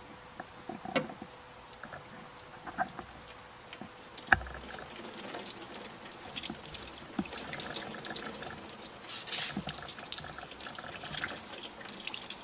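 Water poured on the outside of a car door's window, trickling and dripping down inside the door shell onto the sheet metal: a sign that water gets past the window seal into the door. There is a single knock about four seconds in, and after it the splashing grows dense and steady.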